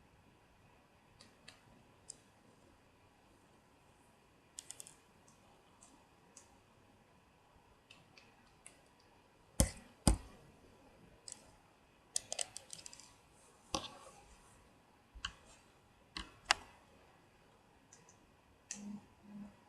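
Irregular small clicks and taps of a screwdriver and tiny screws as screws are taken out of an HTC G2 phone's motherboard, with two sharper knocks about halfway through.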